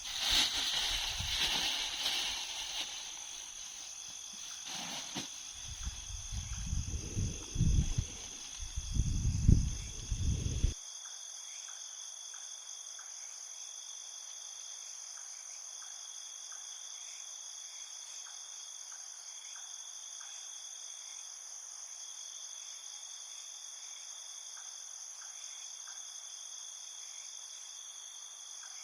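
Low rumbling gusts, like wind buffeting the microphone, for about ten seconds, then an abrupt change to a steady high-pitched chorus of crickets trilling, with faint regular ticks.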